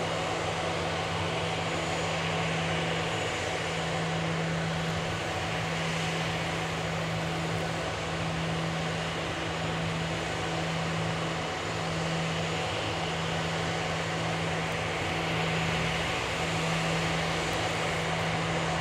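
Steady mechanical hum and hiss from an Airbus A340-300 being towed by a towbarless tug, with a constant low drone under it.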